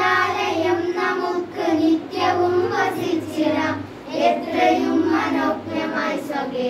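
A group of girls singing a prayer song together, a slow held melody in phrases of about a second each.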